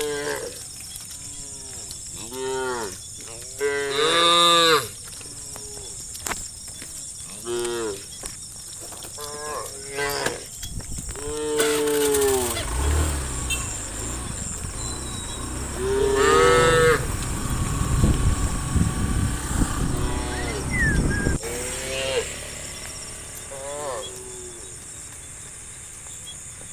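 A herd of cattle mooing, many calls one after another from different animals, some short and some drawn out. A low rumbling noise runs under the calls through the middle stretch.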